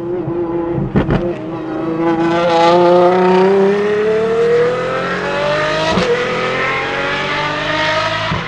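Apollo IE hypercar's V12 engine accelerating hard, its pitch climbing steadily through a long pull. A couple of sharp cracks sound about a second in and another about six seconds in.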